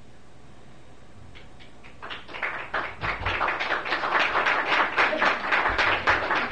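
Small audience applauding, beginning about two seconds in after a stretch of quiet room hum, with the individual hand claps distinct.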